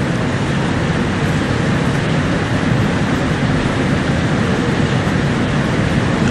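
Steady, even background noise with a low rumble and hiss above it, unchanging throughout and with no voice over it.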